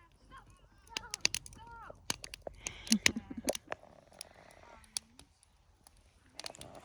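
Wood campfire crackling, with irregular sharp snaps and pops throughout.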